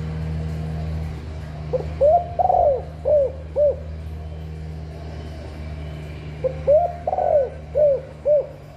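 Spotted dove cooing its song twice, each a phrase of about five arching coo notes with a longer third note. A steady low hum runs underneath.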